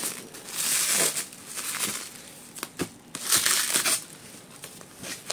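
Clear plastic wrapping crinkling and rustling as it is handled and pulled off a laptop, in two louder bouts, about half a second in and again past three seconds, with a few sharp crackles between.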